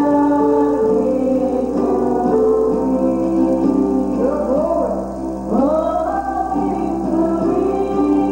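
Gospel singing with a solo voice over a guitar or piano accompaniment, the voice gliding up into a long held note about five and a half seconds in.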